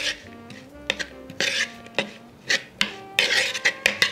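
A spoon stirring and scraping chopped tomato, red onion and cilantro around a wooden bowl, in a quick, uneven run of wet scraping strokes, with soft background music under it.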